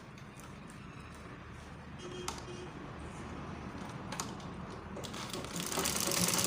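A few quiet handling sounds with two sharp clicks, then near the end a sewing machine starts stitching, its rapid rhythmic needle action growing louder.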